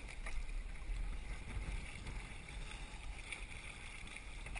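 Wind buffeting the microphone in a strong breeze, over choppy water lapping at a sea kayak and a few faint splashes of paddle strokes.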